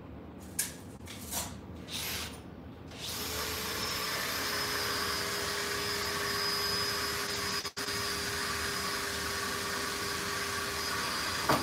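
A few short knocks of handling, then a small power tool motor running steadily for about eight seconds with a constant whine, stopping just before the end.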